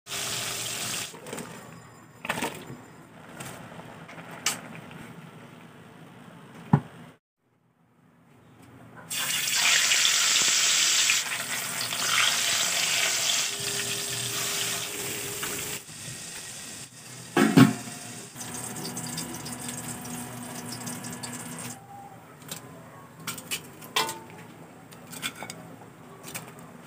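Metal tongs tapping and scraping on a wok as fried fish is turned, with a few sharp clicks. About nine seconds in, a long loud hiss of water starts, followed by one hard knock on the wok and more light taps near the end.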